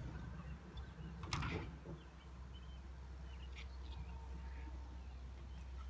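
BMX bike riding a halfpipe ramp: a sharp knock about a second and a half in, over a low steady rumble, with faint bird chirps now and then.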